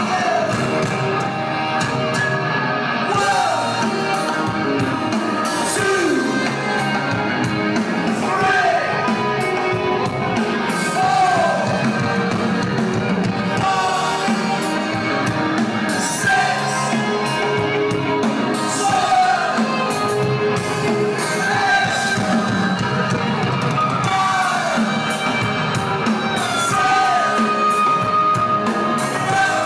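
Live rock band playing: electric guitars, bass guitar and drums with a lead vocal, heard through the hall's PA from within the audience.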